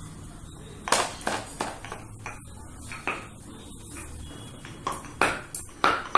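Stainless steel cups and tumblers clinking and knocking against each other: about ten sharp metallic clinks in irregular groups, some ringing briefly.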